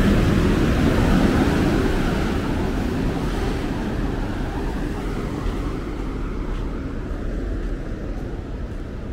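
A passing vehicle's low rumble and rushing hiss, loud at first and slowly dying away as it moves off.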